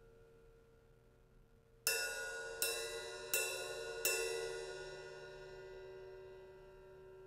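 Zildjian 14-inch A Custom Mastersound hi-hats struck four times with a stick, evenly about three-quarters of a second apart, the two cymbals held slightly apart so that each stroke rings on and the shimmer slowly fades after the last one.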